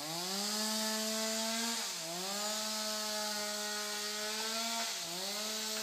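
Stihl MS 250 two-stroke chainsaw revved up from idle and held at high throttle, a steady high whine that sags briefly in pitch and recovers twice, about two and five seconds in.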